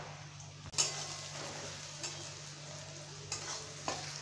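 Sliced onions sizzling in hot oil in a metal kadai, stirred with a flat steel spatula that scrapes and knocks against the pan, loudest about a second in. The onions are nearly fried.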